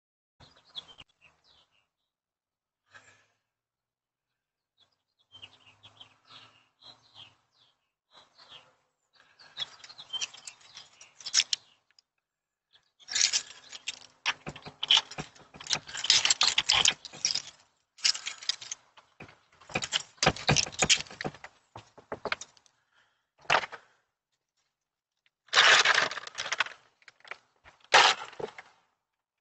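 Irregular rustling, crackling and clicking of small objects being handled close to a Ring Floodlight security camera's microphone, with a screen door being opened near the end.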